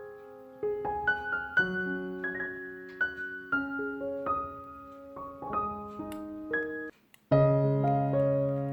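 Background piano music: slow single notes and chords ringing on. It breaks off for a moment about seven seconds in, then resumes with a fuller, louder chord.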